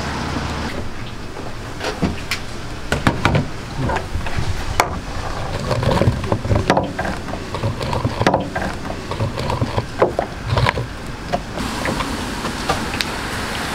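Busy food-stall clatter: repeated short knocks and clicks of utensils and metal trays over a steady background hubbub, with brief snatches of voices.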